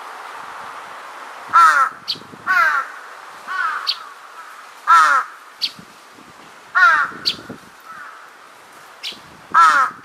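Large-billed crow cawing loudly, six harsh caws at irregular intervals of one to three seconds.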